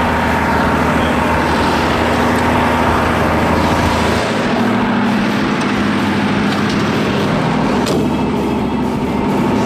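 Mercedes-Benz Unimog 1300L's six-cylinder diesel engine running steadily. It is heard at first from beside the truck and, partway through, from inside the cab.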